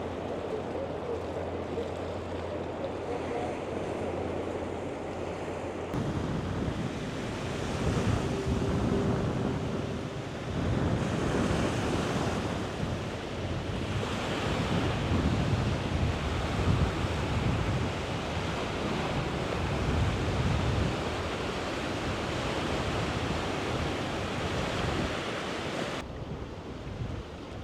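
Wind buffeting the microphone in uneven gusts, with rumbling surges in the low end. A steady low hum sits under it for the first few seconds and stops abruptly.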